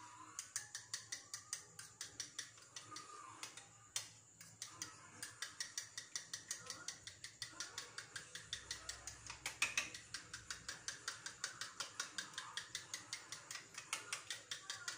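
A utensil beating eggs in a bowl, clicking against the bowl in a quick, even rhythm of about five strokes a second.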